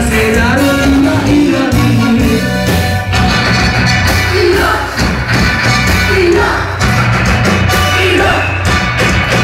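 Loud live rock music with singing, drums and a heavy bass line, played to a club stage.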